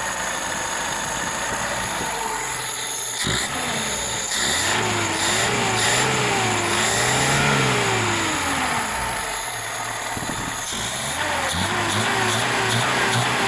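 VAZ carburettor four-cylinder engine running on the fuel left after the supply is shut off, its speed rising and falling in slow surges as it burns the remaining fuel.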